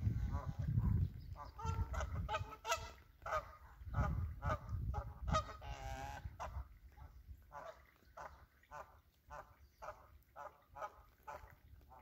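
Geese honking, a run of short repeated calls several a second that grow fainter in the second half, over a low rumble in the first few seconds.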